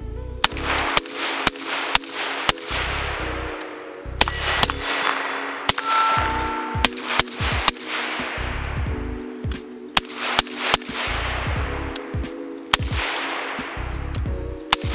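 Suppressed 11.5-inch BCM AR-15 with a SureFire Mini 2 suppressor firing semi-automatic shots in quick strings, mostly about half a second apart, each shot followed by a short echo.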